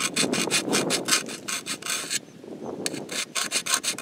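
Hand file rasping across the steel teeth of an arborist pruning saw in quick short strokes, about five a second, sharpening the cutting edges. The strokes pause about two seconds in and pick up again near the end.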